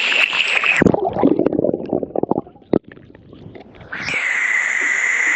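Steady rush of a waterfall that cuts out about a second in, giving way to muffled gurgling and sloshing as the microphone goes underwater during a swim. The waterfall's rush comes back about four seconds in, when the microphone surfaces.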